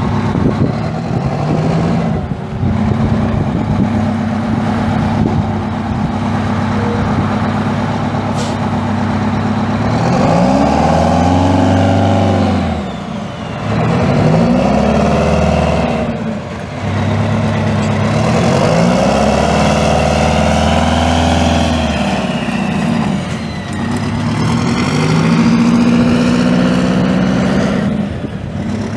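Detroit Diesel eight-cylinder turbo diesel engine of a 1980 Oshkosh T-6 fire truck idling steadily, then revved up and let back down four times in the second half, the third rev held longest.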